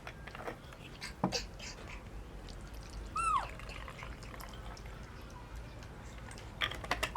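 A short animal squeal falling in pitch about three seconds in, among scattered light clicks and ticks.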